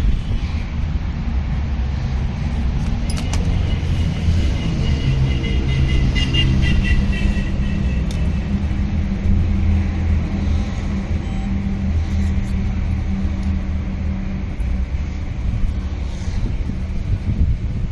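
Steady low rumble of a motor vehicle running, with a brief rapid higher-pitched chatter from about three to eight seconds in.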